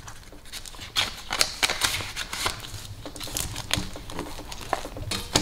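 Paper banknotes rustling and a clear plastic binder pocket crinkling as bills are slid in and smoothed flat by hand: a run of irregular, crisp clicks and rustles.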